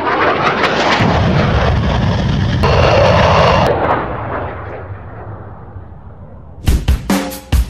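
Loud jet roar with booming hits from a fighter-jet promotional trailer's soundtrack, fading away from about four seconds in; a drum beat starts near the end.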